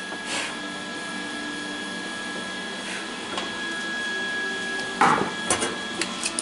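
Metal parts being handled, with several sharp knocks and clicks in the last second or so, over a steady faint hum with a high, even whine.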